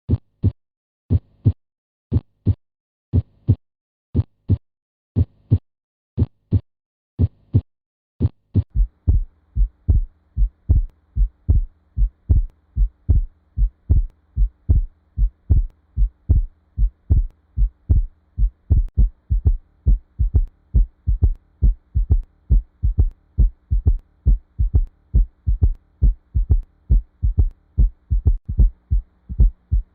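Recorded heart sounds: a slow, regular two-part lub-dub beat, about one cycle a second, with silence between beats. About nine seconds in it changes to a faster beat over a steady low hum.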